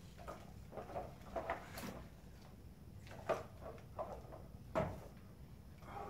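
Irregular clicks, knocks and rustles from a hand-operated seagull puppet's handle, rods and wings as it is swung and flapped about, with two sharper knocks past the middle.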